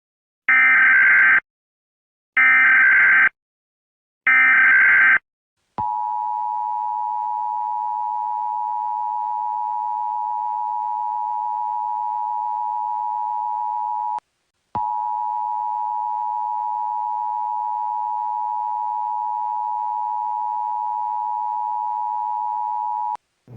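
Emergency Alert System opening: three bursts of the screeching digital SAME header data, about a second each, then the steady two-tone EAS attention signal, which stops briefly midway and resumes until just before the voice message.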